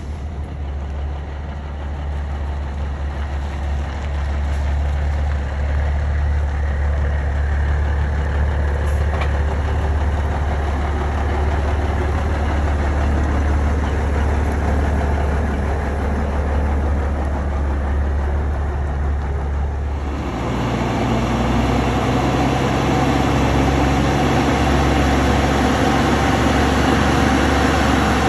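Heavy truck engine idling steadily with a deep hum. About twenty seconds in, the sound changes abruptly to a louder, fuller engine note.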